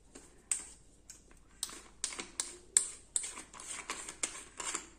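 A dozen or so sharp, irregular clicks and taps of a stainless-steel murukku press being handled as dough is packed into its cylinder by hand.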